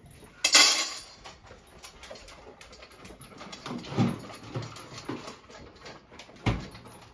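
Household clatter with dogs: a loud rattling burst about half a second in, a few short dog whines around the middle, and a single sharp knock near the end.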